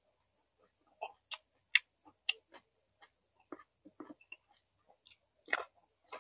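A person chewing roasted vegetables close to the microphone: irregular short clicks and crunches with small gaps between them, the loudest crunch about five and a half seconds in.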